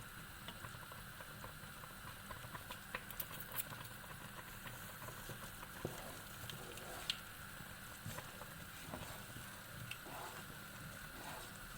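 Strawberry jam simmering in a pot, a faint steady bubbling with scattered small clicks and ticks.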